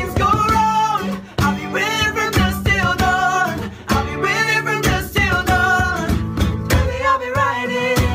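A song: a voice singing a melody over guitar accompaniment with a steady beat.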